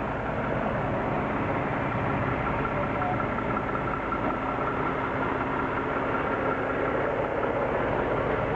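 Heavy delivery truck's diesel engine running steadily at idle.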